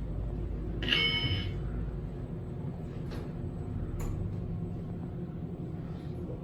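Elevator arrival chime: a single short ding about a second in, several tones at once, over a steady low hum. A few faint clicks follow.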